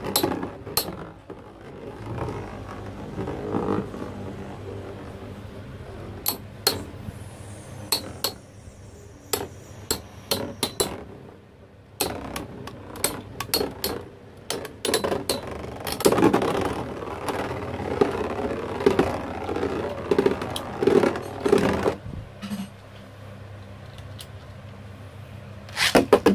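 Spinning tops clashing: sharp clicks and clinks as they strike each other, with scraping and rattling. The rattling is busiest from about 16 to 22 seconds in.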